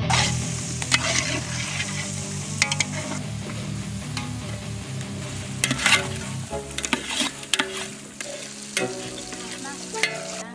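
Food sizzling as it fries in hot oil in a cooking pot, loudest in the first few seconds, while a metal spoon scrapes and knocks against the pot as it is stirred, about a knock every second or two.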